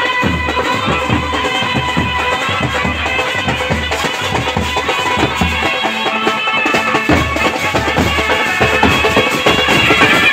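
Indian wedding brass band playing outdoors: a trumpet-led melody over a steady bass-drum beat.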